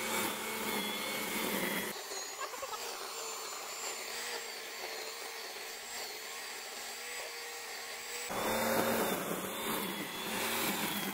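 Corded electric string trimmer running with a steady motor whine as it cuts tall grass; the sound shifts abruptly about two seconds in and again near eight seconds.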